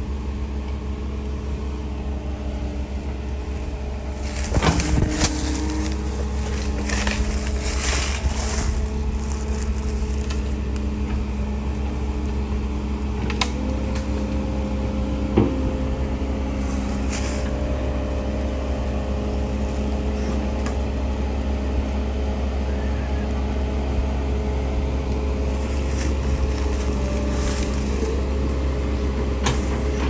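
Diesel engines of a Cat 308 mini excavator and a Cat 299 tracked skid steer running steadily, with one engine note stepping up in pitch about fourteen seconds in. Sharp knocks and clanks come through at intervals, heaviest between about four and nine seconds in.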